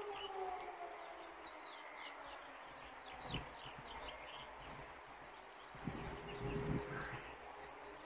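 Distant civil-defence siren sounding a test alarm, its tone falling away over the first few seconds and coming back and climbing again near the end. Birds chirp throughout, and wind gusts rumble on the microphone a few times.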